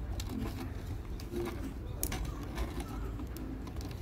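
Faint handling noise as a flat ribbon cable is peeled off a DVD player's loader mechanism, with a few light clicks about two seconds in, over a steady low hum. A dove coos in the background.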